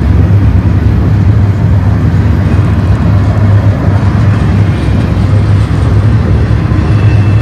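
Double-stack container well cars of a freight train rolling past at close range: a loud, steady low rumble of steel wheels on the rails.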